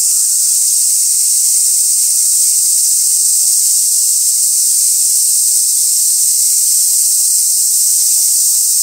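Steady, loud chorus of cicadas: an unbroken high, shrill hiss.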